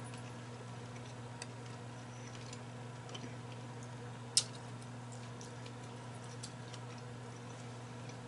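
A person chewing food with her mouth closed, with faint scattered mouth clicks and one sharper click about four seconds in, over a steady low hum.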